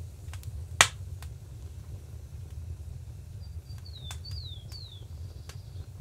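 A wood fire crackling: scattered sharp crackles and one loud pop just under a second in, over a low steady rumble. European starlings give several short falling whistles between about three and a half and five seconds in.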